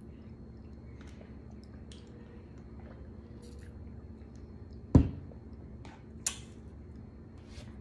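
Quiet sipping of a thick berry smoothie through a straw from a plastic tumbler, with small faint sounds, then about five seconds in a loud knock as the tumbler is set down on the table.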